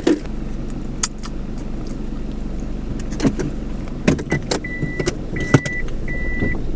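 A car engine idling steadily, with a few sharp clicks and knocks. About four seconds in, an electronic beep starts, repeating evenly about three times every two seconds.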